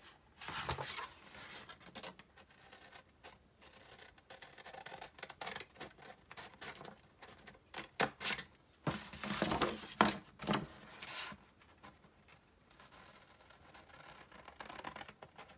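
Scissors cutting through a patterned paper envelope in a series of snips, with the paper rustling as it is handled. A cluster of louder snips comes a little past halfway.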